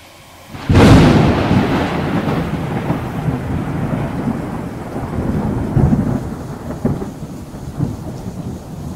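Thunderstorm sound effect: a sudden loud thunderclap about a second in that rumbles on and slowly fades over a hiss of rain.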